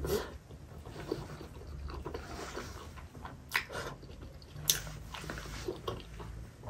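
Close-up chewing of a soft steamed chicken momo, with several sharp wet lip smacks and mouth clicks over the chewing.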